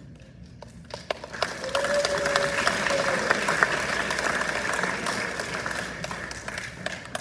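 Audience applauding, a dense patter of many hands clapping that starts about a second in and fades toward the end.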